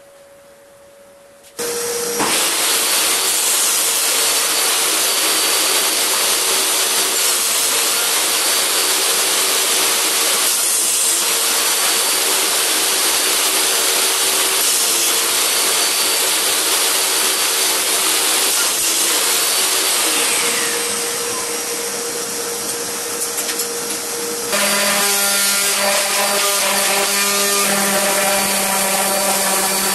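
A table saw switches on about a second and a half in and runs with a steady hum while crosscutting pine strips on a sled. Near the end the sound changes abruptly to a DeWalt random orbital sander running on pine.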